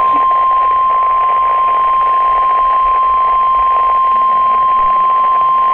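NOAA Weather Radio's 1050 Hz warning alarm tone: a single steady, loud high tone over receiver static hiss. It signals that a warning broadcast, here a severe thunderstorm warning, is about to follow.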